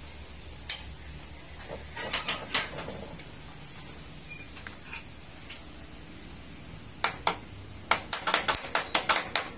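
Metal clinks and taps as tools and hands work the loosened clutch cover off a Bajaj CT100 engine: one click about a second in, a short run of clinks around two seconds, then a quick run of a dozen or so clinks near the end.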